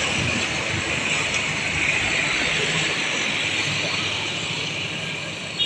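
Road traffic passing close by: motorcycles and a pickup truck going past with tyre hiss and engine rumble as an intercity coach pulls away, the noise slowly fading.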